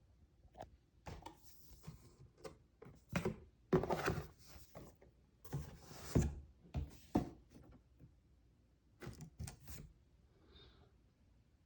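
Handling noises from a cordless stick vacuum's parts and packaging: an irregular run of knocks, clicks and rustles as pieces are picked up and set down, busiest in the first half, with a few more knocks later. The vacuum is not running.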